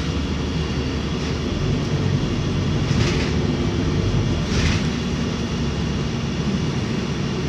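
City bus running, heard from inside the cabin as a steady low engine and road rumble, with two short hisses about three and four and a half seconds in.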